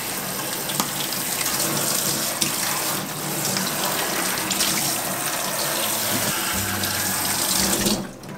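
Kitchen faucet running steadily, its stream splashing over a head of lettuce being rinsed by hand and into a stainless steel sink. The water cuts off near the end.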